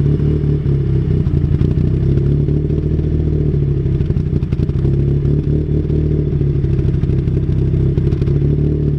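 Mazda NB Miata four-cylinder engine idling steadily through an M2 Motorsport exhaust with a lopey, big-cam idle, its adjustable cam gears set for a lot of valve overlap.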